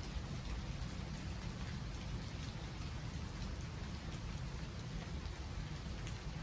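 Steady rain falling on trees, a continuous hiss with many scattered drop ticks over a low rumble.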